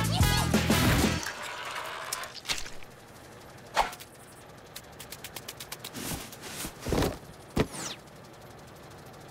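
Cartoon sound effects: a music cue ends about a second in, then sparse knocks and thumps, a quick run of light ticks, and a short falling whistle.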